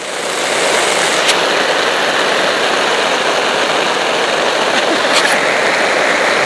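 Rain falling on a tarp shelter overhead, a steady dense hiss with two brief ticks.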